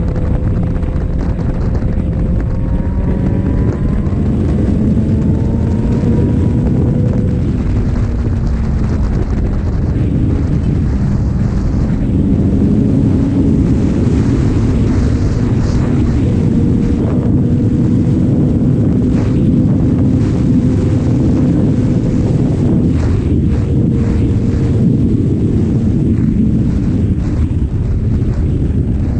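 Sport motorcycle engine under way, buffeted by heavy wind rush on the microphone. Its note climbs in pitch twice in the first several seconds, then runs fairly steady.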